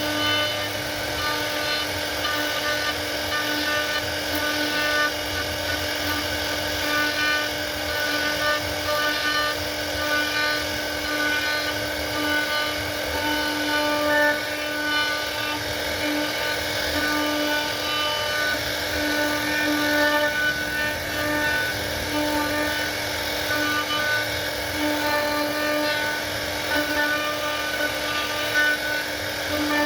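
CNC router spindle running steadily, a constant whine whose level swells and dips every second or so.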